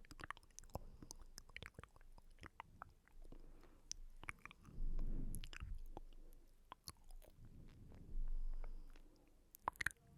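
ASMR mouth sounds close to the microphone: quick wet clicks and smacks, with two louder, low, muffled swells in the middle and near the end.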